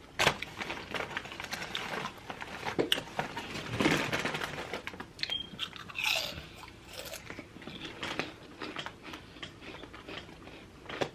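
Close-up chewing and crunching of food, a run of irregular crisp bites.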